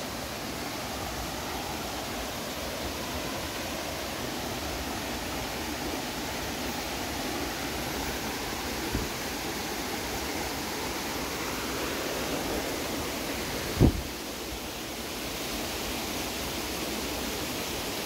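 Steady rush of creek water spilling over rocks and falls, with one short thump about two-thirds of the way through.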